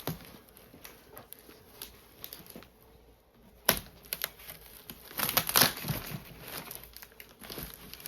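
Cardboard box and packing material being handled and pulled apart: crinkling and tearing with scattered crackles, a sharp knock a little under four seconds in, and a busier burst of crinkling around five to six seconds.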